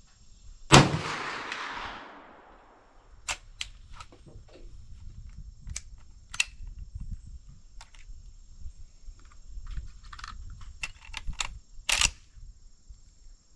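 A single .357 Magnum gunshot about a second in, followed by a long rolling echo. It is followed by a scatter of small metallic clicks and clacks, with a sharper clack near the end, from the gun being worked between shots.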